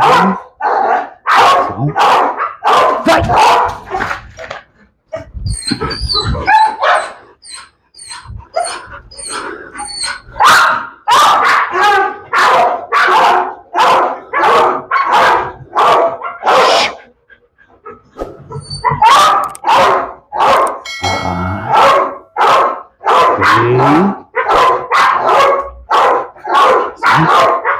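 A dog barking over and over, about two barks a second, in runs broken by a few short pauses.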